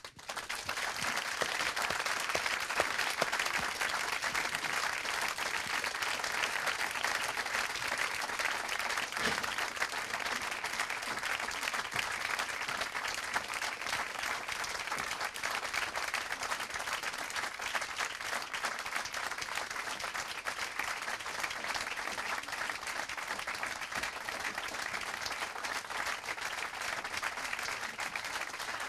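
A seated audience applauding together, dense steady clapping that breaks out all at once and keeps going without letting up.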